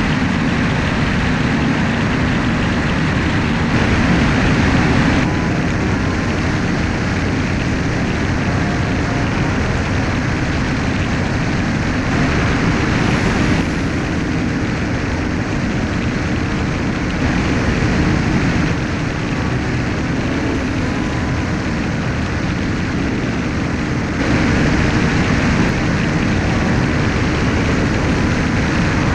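Steady in-flight noise of a light propeller aircraft, its engine and the rushing airflow picked up by a camera mounted on the aircraft. The level steps up and down a little several times.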